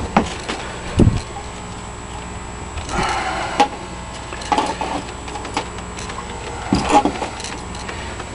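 Handling noises: a few scattered knocks and clicks with some rustling, the strongest knocks about a second in and near the end, over a steady low hum.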